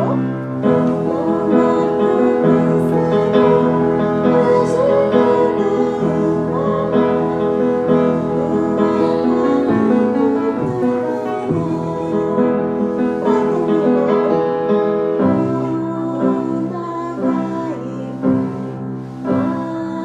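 Piano accompaniment with voices singing a song.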